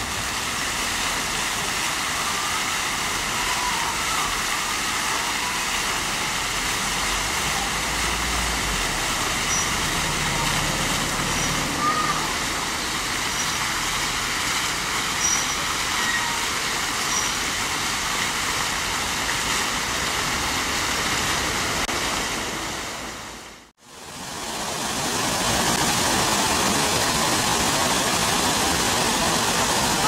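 Fountain water jets splashing steadily into the basin as a continuous rushing hiss. About three-quarters of the way through, the sound dips out briefly and comes back as another fountain's steady, slightly louder splashing.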